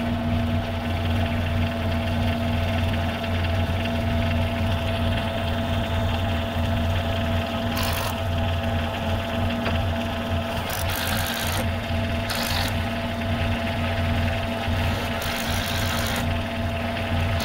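Kubota compact tractor's diesel engine idling steadily. Over it, a cordless drill runs in four short bursts in the second half, driving screws into wood.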